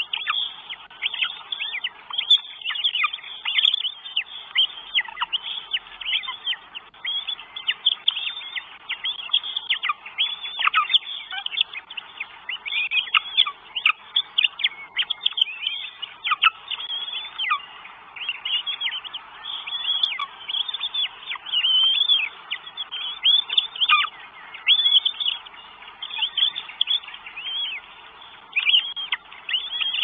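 Northern goshawk nestlings' high-pitched begging calls: a fast, continuous stream of short chirps, many dropping in pitch, close and loud.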